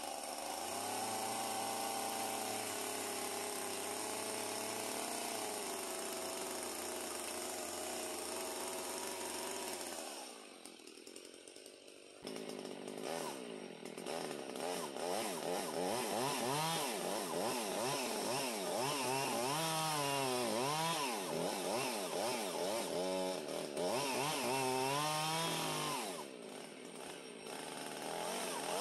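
Gas two-stroke chainsaw running at a steady speed for about ten seconds, then dropping away briefly. It comes back with its engine speed rising and falling over and over as it cuts into a wooden post.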